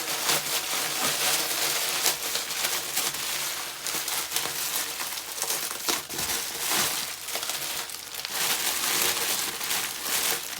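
Packaging rustling as it is handled and pulled about while unboxing, a steady scratchy rustle dotted with many small clicks.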